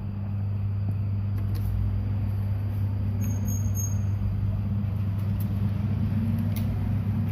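A steady low hum runs throughout, with a few faint light clicks from handling a ruler and pen on a desk.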